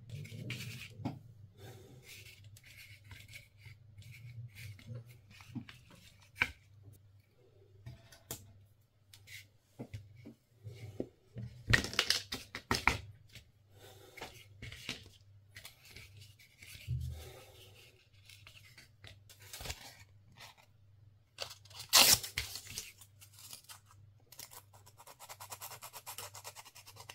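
Small hand-work sounds from making a micro jig lure: scattered clicks, rustling and scraping, with sharper snaps about twelve and twenty-two seconds in and a stretch of rasping near the end, over a steady low hum.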